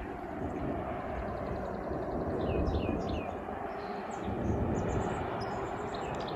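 Wild birds calling outdoors: short, high, downward-slurred chirps in quick runs of three or four, over a steady low rumble.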